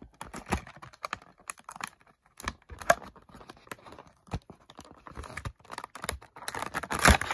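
Stiff clear plastic blister of an action-figure package clicking and crackling as it is pried away from its cardboard backing, in irregular taps, with a louder burst of crackling near the end.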